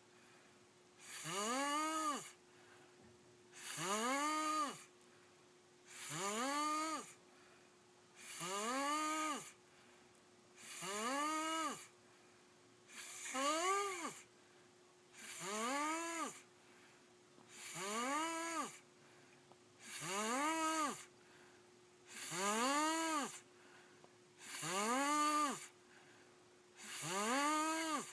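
A boy snoring in a steady rhythm, about one snore every two seconds, each snore a pitched rise-and-fall with a hissing breath.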